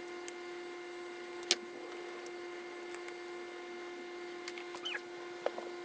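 Scattered small clicks and taps from handling PEX pipe and tools, the sharpest about a second and a half in, over a steady hum.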